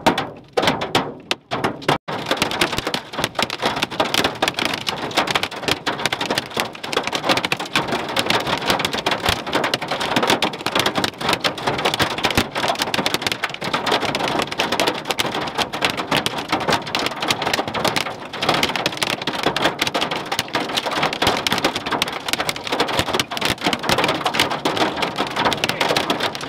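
Large hail pelting a vehicle's roof and windshield: a dense clatter of hailstone impacts. It is patchier for the first two seconds, then runs on steadily.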